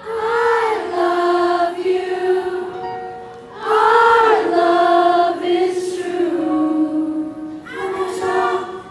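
Singing voices without instruments at a live concert: sung phrases held and bent in pitch, with short gaps between them.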